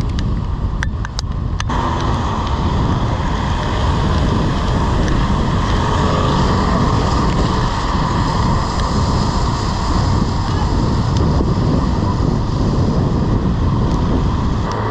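Wind rushing over a camera microphone on a moving bicycle, with a steady hiss from the wet road and traffic that comes in about two seconds in.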